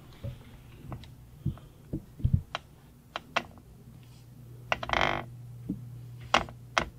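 Scattered light clicks, knocks and crinkles of a plastic bag and gear where a tabby cat lies curled up, over a low steady hum. There is one short, louder rush of sound about five seconds in.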